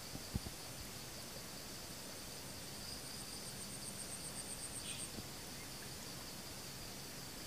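Forest insects chirring steadily in one high tone, with a high, rapid pulsing trill from about two to five seconds in.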